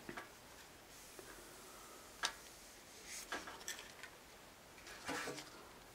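Quiet handling sounds as a cloth is wiped over a katana blade: a few light clicks and taps, about two seconds in and again around three and a half seconds, and a soft cloth rustle near the end.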